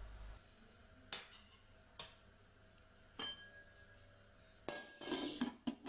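Glass pot lid clinking against a stainless steel pot: three single ringing clinks about a second apart, then a quick cluster of clinks and knocks near the end as the lid is set on.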